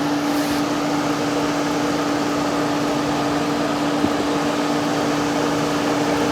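Vintage 6,000 BTU Gibson Air Sweep room air conditioner running with compressor and fan on: a steady hum with one strong low tone under the rush of the fan's air. A faint click about four seconds in.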